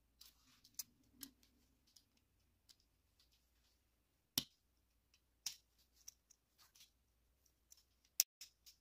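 Faint, scattered clicks and taps of the plastic window insert and black plastic base of a Majorette Volvo 760 GLE die-cast toy car being fitted into its metal body. A sharper click comes about four seconds in, another a second later, and one near the end.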